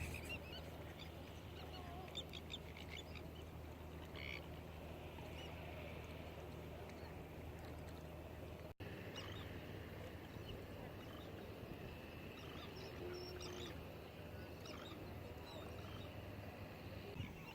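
Faint, scattered bird calls, short chirps and squawks, over a low steady hum. The sound drops out briefly about nine seconds in.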